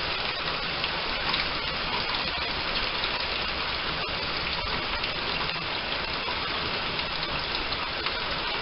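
Heavy rain pouring down steadily, a dense even wash of drops on the ground and porch.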